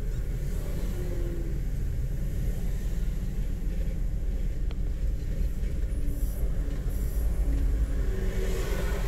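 Road noise of a moving car heard from inside: a steady low rumble of engine and tyres with a faint hiss, and a rushing swell near the end.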